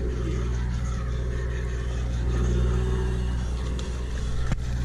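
Sportfishing boat's engine running with a steady low drone. A single sharp knock comes about four and a half seconds in.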